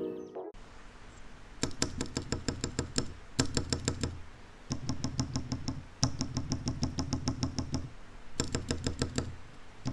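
Rapid clacking key presses, about ten a second, in short bursts of one to two seconds with brief pauses, each press a sharp click over a low thud.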